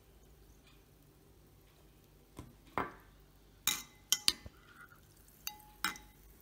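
Metal teaspoon stirring in a drinking glass of water, clinking against the glass about seven times from about two and a half seconds in, some clinks ringing briefly.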